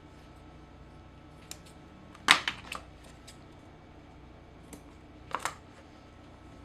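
Sharp clicks and knocks of small hard objects being handled on a workbench: a loud cluster of three about two seconds in, and a pair near the end.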